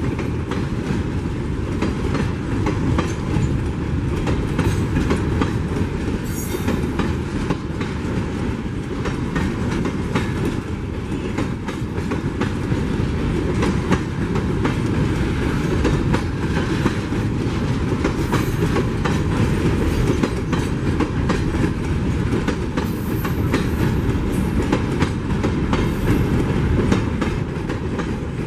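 Empty ore hopper wagons of a freight train rolling past with a steady rumble and wheels clacking over the rail joints, with a few brief high-pitched squeaks.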